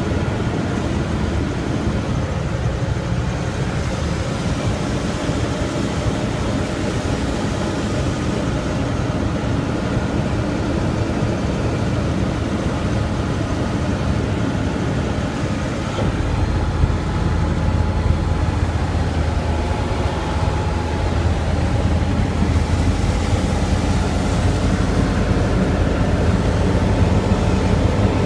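Flight Design CTSW microlight's Rotax 912 engine and propeller running steadily on approach, heard inside the cabin as a dense drone with wind noise. About halfway through, the low drone shifts and gets a little louder.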